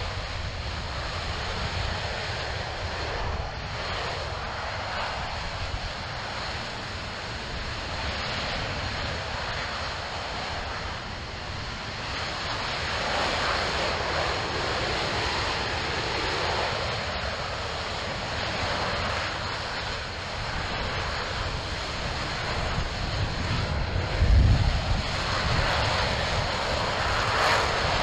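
RS-25 liquid-hydrogen, liquid-oxygen rocket engine firing on a test stand: a continuous rushing noise that swells and eases every few seconds. A louder deep rumble surges about 24 seconds in.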